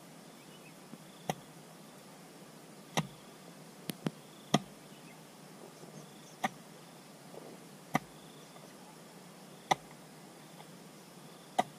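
Chopping with a hand tool: about eight sharp single blows at uneven intervals of one to two seconds.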